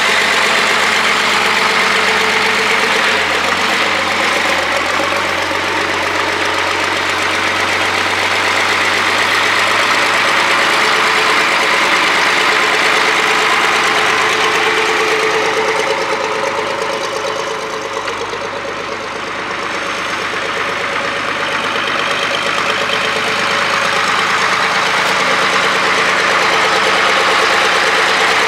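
Case 2090 tractor's six-cylinder diesel engine running steadily at low speed as the tractor drives across gravel. It grows quieter about two-thirds of the way through as the tractor moves off, then louder again as it comes back.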